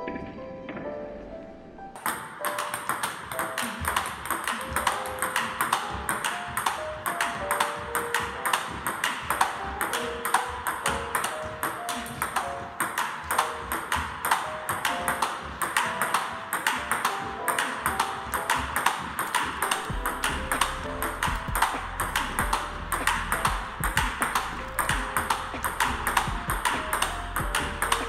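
Table tennis ball clicking off rubber bats and the table in a quick, steady run of strokes during a backhand push drill, starting about two seconds in, over background music.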